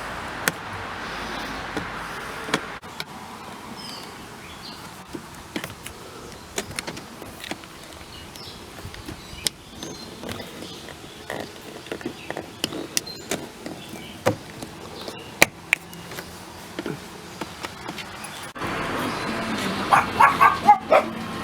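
Scattered light clicks and taps of hand work on a car door's trim panel, as a screw and plug are put back in. A steady rushing noise is heard for the first few seconds, and a louder noisy stretch with short higher sounds comes near the end.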